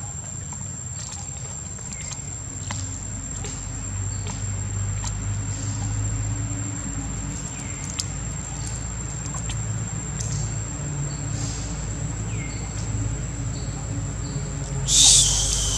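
Outdoor ambience: a thin, steady high-pitched whine over a low rumble, with scattered faint clicks and one short, loud, shrill sound near the end.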